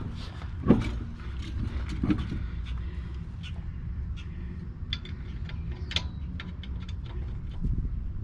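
Metal brake hardware and hand tools clicking and knocking in a string of short, sharp sounds, with louder knocks about a second in and about six seconds in, over a steady low rumble.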